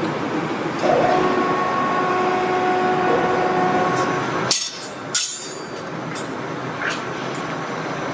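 Factory machinery running: a steady mechanical noise with a few faint steady tones over it in the first half, broken by a sudden short gap about halfway through.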